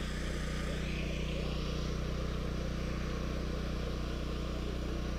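A steady, unchanging low drone like a running engine, with an even background hiss.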